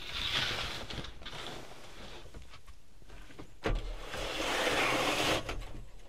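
Rustling and scraping of something being handled, in uneven swishes, with a sharp knock about two-thirds of the way in followed by a louder stretch of scraping.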